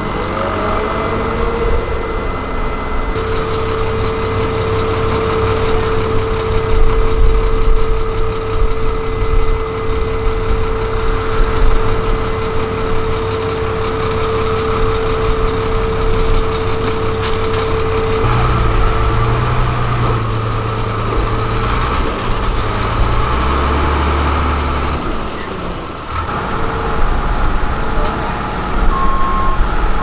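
Heavy diesel road-paving machinery (asphalt paver, dump truck and road roller) running steadily together, with a steady whine over the engine rumble through the first half.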